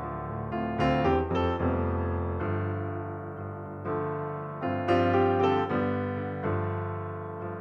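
Background piano music: struck notes in a slow melody over held lower notes, with fresh clusters of notes about a second in and again about five seconds in.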